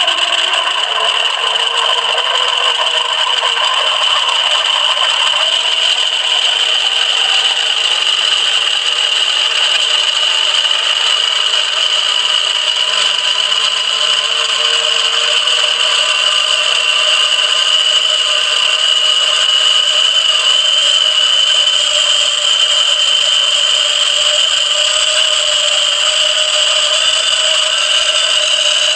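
Motor-driven train of 3D-printed plastic gears spinning submerged in water inside a sealed test box, running up in speed: a steady high whine with rattling and churning water, its lower tones rising slowly as the speed climbs. The water makes the gears take a lot of torque to spin.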